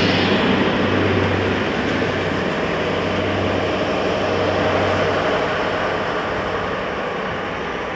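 DB Class 218 diesel-hydraulic locomotive working under power as it pushes a passenger train away: a steady engine drone with a low hum that slowly fades as the train recedes.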